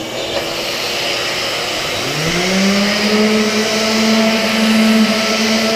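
Vacuum hooked to an orbital sander running with a steady rushing noise; about two seconds in the sander motor starts, its pitch rising quickly and settling into a steady hum.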